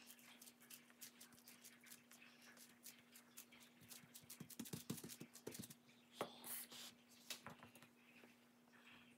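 Faint sticky taps and clicks of hands pressing and spreading sushi rice over a sheet of nori on a bamboo rolling mat, with a denser run of taps and soft thuds near the middle. A steady low hum runs underneath.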